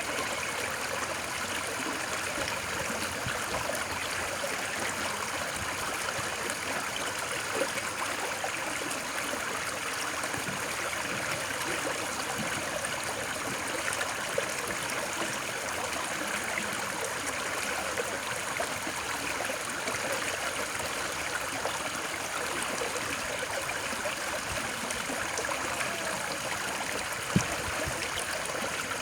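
Steady rushing and trickling of a flowing stream, played as sleep white noise. Three brief clicks stand out, the loudest near the end.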